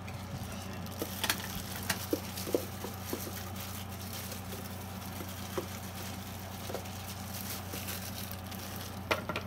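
Scattered light knocks, clicks and rustles of a plastic food tub and thin plastic gloves as sticky bread dough is shaken out of the tub, over a steady low hum. The knocks come mostly in the first few seconds, with a couple more near the end.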